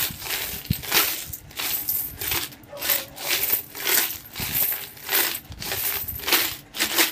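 Coins rattling inside a plastic piggy bank and clinking out through its opened bottom onto a pile of coins, in repeated jingling bursts about once or twice a second as the bank is shaken.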